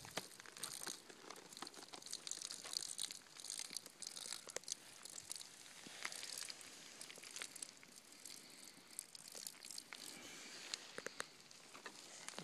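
Dry grass crackling and rustling close to the microphone, with many scattered sharp clicks, busiest in the first few seconds.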